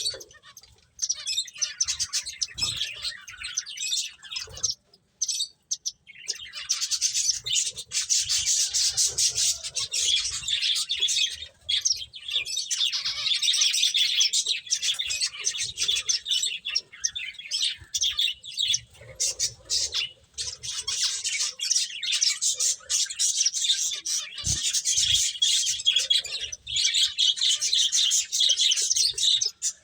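A group of pet finches chirping and chattering in rapid, overlapping calls, with a brief lull about five seconds in.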